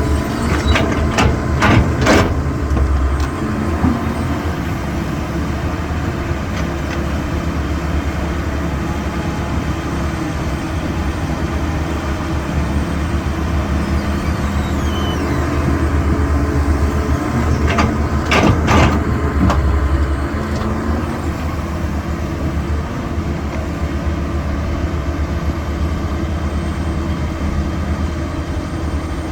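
Heavy diesel engine of a CAT 320 hydraulic excavator running steadily under load while it works. Clusters of sharp knocks and clatter come in the first two seconds and again about 18 seconds in.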